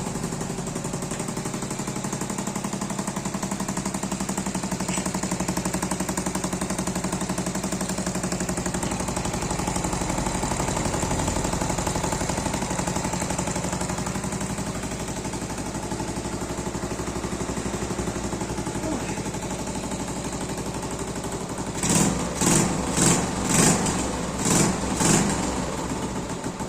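Hinchen 70cc motorcycle engine idling with a rapid, even putter, then revved in six short throttle blips in quick succession near the end.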